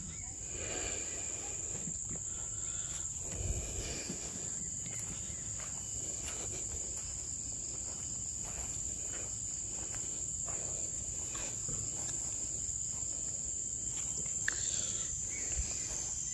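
A steady, high-pitched insect chorus, crickets or cicadas, droning without a break, with faint rustles and a soft thump about three and a half seconds in.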